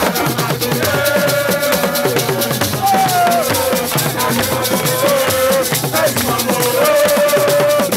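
Loud music: fast, busy percussion with shaker-like rattles under a held melodic line that slides up and down in pitch.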